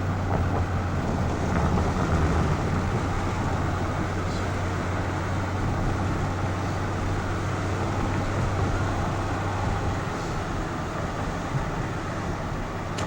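Steady road noise of a car driving: a low engine drone under an even rush of tyre and wind noise, a little louder about two seconds in.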